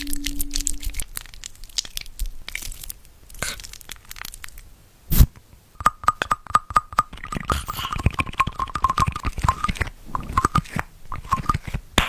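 A dog chewing and crunching on something, with irregular crackling clicks, one sharp knock about five seconds in, and a run of short high squeaks in the middle.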